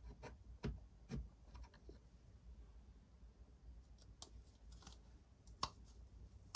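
Scattered light clicks and taps of the soap dispenser's pump assembly and circuit boards being handled and fitted back into its metal housing.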